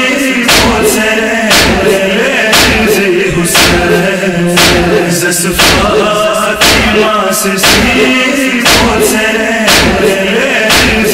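Male voices chanting a Balti noha, a Shia lament, over a heavy beat that strikes about once a second and keeps time.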